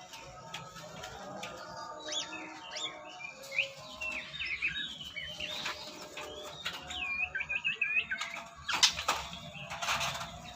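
White-rumped shamas calling with quick sweeping whistled notes, then loud bursts of wing flapping near the end, as birds scuffle in an aviary.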